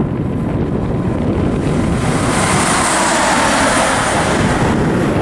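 Two coupled electric locomotives running light past at speed: a steady rush of wheel and rail noise that swells about two seconds in and eases near the end.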